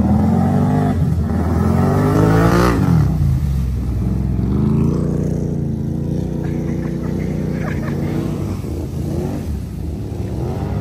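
Can-Am ATV engines revving through muddy water, with water splashing from the tires. The engine pitch climbs to a peak about two and a half seconds in, drops away, then settles into a steadier running note as the machines pull off.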